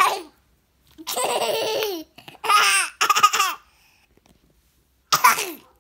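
A toddler girl laughing in several bursts.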